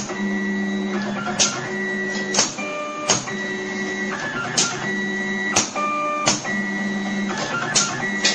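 Flat cable stripping, cutting and splitting machine running through its cycle. Its motors hum at a steady pitch while feeding cable and step briefly through higher tones between moves. A sharp clack of the blades comes about once a second.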